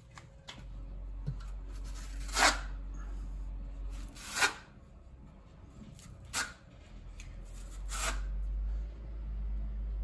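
Steel notched trowel scraping across tile mastic on the wall: four short scraping strokes about two seconds apart.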